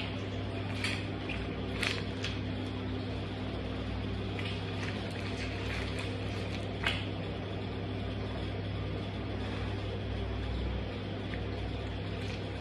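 Black canvas high-top sneaker soles shifting and pressing on crushed orange pulp on a tile floor, giving a few short wet squelches and scuffs, the sharpest about seven seconds in, over a steady low mechanical hum.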